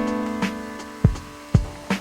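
Background music: a held, slowly fading chord over a steady beat of drum hits about twice a second.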